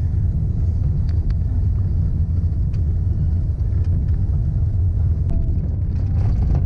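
Car driving on a gravel road: a steady low rumble, with light ticks of gravel now and then.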